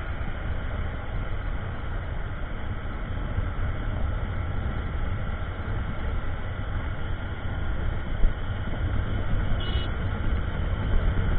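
Steady motorcycle riding noise: engine drone under a constant rush of wind on the microphone.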